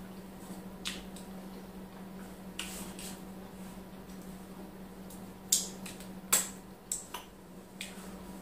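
Close-miked mouth sounds of eating by hand: wet lip smacks and clicks while chewing semolina swallow dipped in ogbono soup. The smacks come irregularly, the loudest a little past the middle, over a steady low hum.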